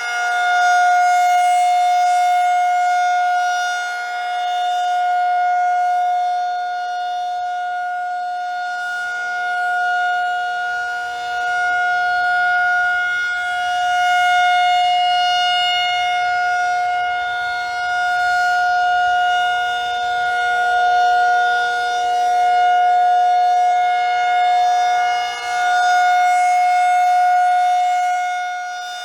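Federal Signal 2001-SRN rotating outdoor warning siren sounding its steady alert tone during a routine test. The pitch holds level while the loudness swells and fades every several seconds as the siren head turns.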